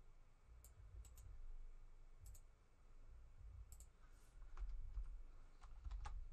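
Computer mouse and keyboard clicks: a few faint, scattered clicks over a low, steady rumble.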